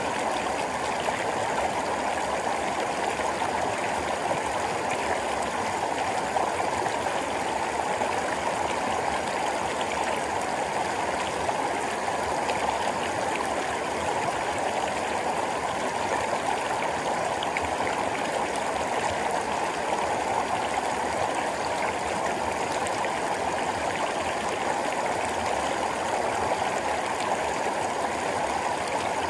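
Mountain stream rushing over rocks right beside the microphone: a steady, unbroken water noise.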